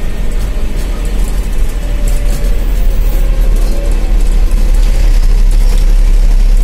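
Large vehicle's engine running, heard from inside its cab as it rolls slowly along: a loud, steady low rumble that grows louder about two-thirds of the way through.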